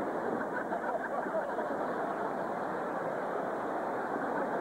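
A large live audience laughing and applauding, a steady crowd noise.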